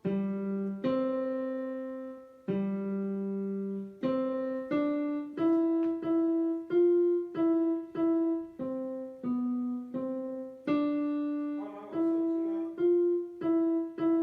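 Piano played one note at a time in a simple melody, each note struck and left to fade. It starts with a few slow, long-held notes, then goes on at about two notes a second from about four seconds in.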